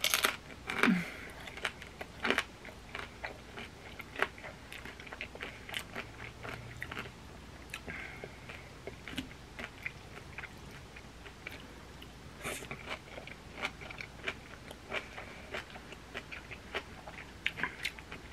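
Close-miked chewing of black bean noodles (jajangmyeon) and dumplings: many short wet mouth clicks and smacks at an uneven pace.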